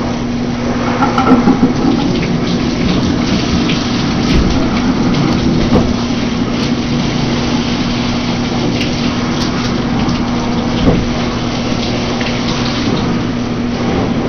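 Water running steadily from a tap or sprayer into a bathtub while a dog is washed, over a steady low hum. A few brief knocks or splashes stand out, about four, six and eleven seconds in.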